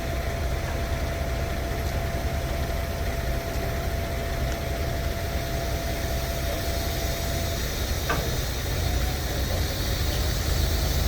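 Vehicle engine idling steadily, with a thin steady whine above it that stops about two-thirds of the way through and a short click shortly after.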